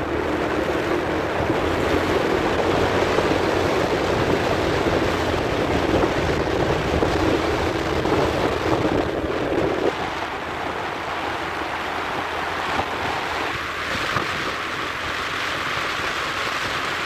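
Wind rushing over the microphone of a moving scooter, a steady, even rush of noise with no clear engine note. The rush thins in its lower part about ten seconds in.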